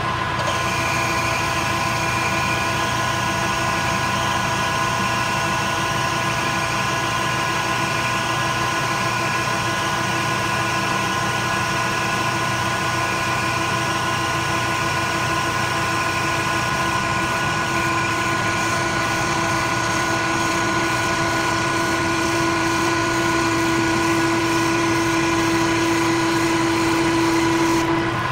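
Metal lathe running, taking a light cut with a carbide insert on a stainless steel spindle shaft held on a live centre. A steady machine hum with a few fixed whining tones, one mid-pitched whine growing louder over the last ten seconds.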